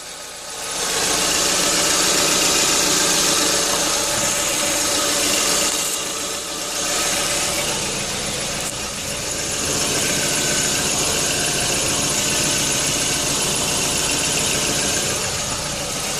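Engine running with a continuous hissing noise over it, the noise the owner is recording as a fault in the engine. The sound dips briefly about six seconds in.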